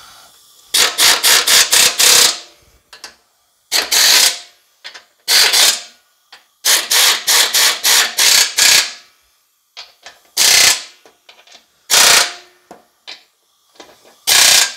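Pneumatic impact wrench hammering the bolts of a mower deck spindle housing, in seven short bursts of rapid rattling with pauses between; the longest bursts come about a second in and about seven seconds in.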